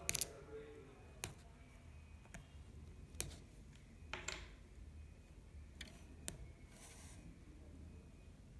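Scattered small clicks and taps of a laptop's parts and tools being handled during disassembly: a quick cluster right at the start, then single clicks every second or so, and a short scrape about seven seconds in.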